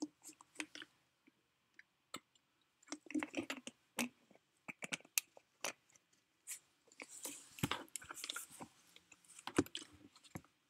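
Irregular soft clicks and crackles close to the microphone, scattered unevenly, with a brief rustle about seven seconds in.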